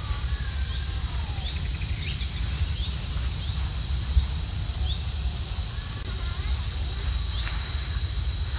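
Wind rumbling on the microphone over a steady, high insect drone, with scattered short bird chirps.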